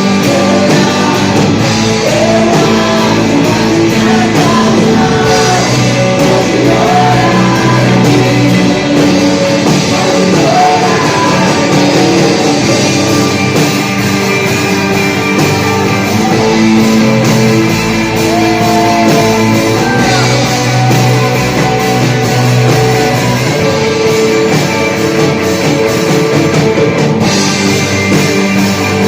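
Band playing a rock-style Christian worship song, with drums, electric guitar and a singing voice, loud and continuous.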